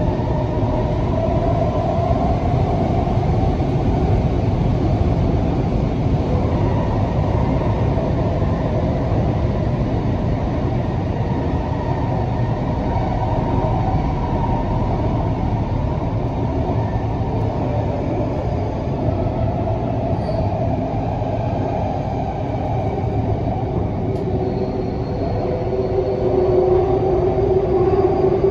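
Canada Line SkyTrain running through a tunnel, heard from inside the car: a steady rumble of wheels on rail with a motor hum. Near the end a humming tone grows louder.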